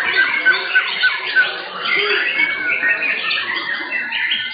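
Several caged white-rumped shamas (murai batu) singing at once in competition: a dense tangle of loud, rapid, overlapping phrases, with a run of quick repeated short notes in the first second and a half.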